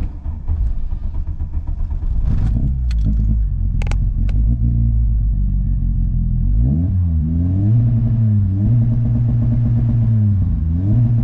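VW Golf Mk2 four-cylinder petrol engine firing up and idling, then revved about six seconds in and held against an Omex rev limiter set to hard cut at around 3500 rpm, the pitch staying flat while the limiter cuts in. Near the end the revs dip briefly and go back up to the limiter.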